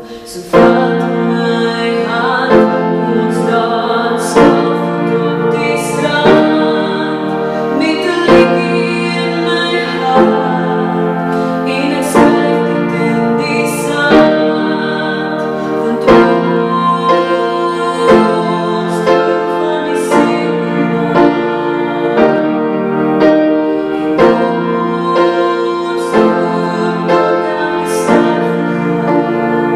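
Upright piano played in a steady accompaniment, a strong chord struck about every two seconds with lighter notes between, under a woman's singing voice.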